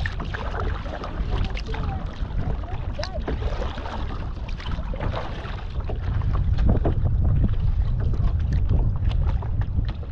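Wind buffeting the microphone in a low rumble that swells louder about six seconds in, with water splashing and lapping against a kayak's hull as it is paddled into a light chop.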